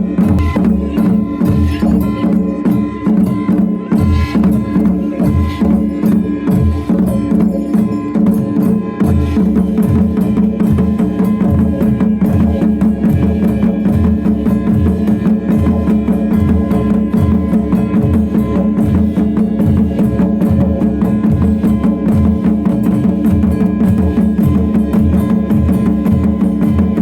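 Music with a steady drum beat under sustained held tones.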